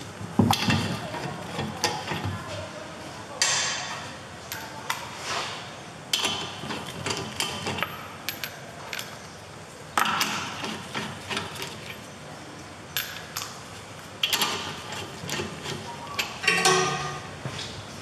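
Wheel bolts being run in by hand with a socket and extension: a series of metallic clinks, rattles and scrapes, about six short bouts with pauses between as each bolt is started and spun in.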